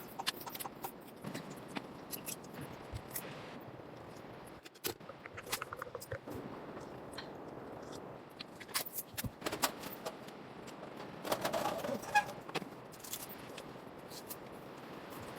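Irregular small clicks and rustling, as of objects being handled, with a denser flurry about eleven seconds in.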